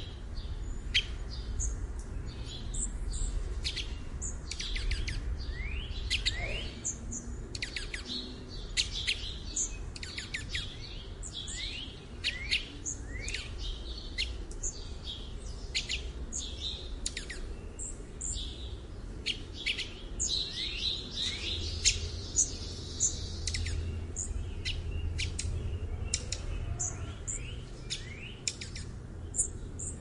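Dark-eyed junco calls: many short, sharp, high chip notes in quick, irregular succession, over a low steady rumble.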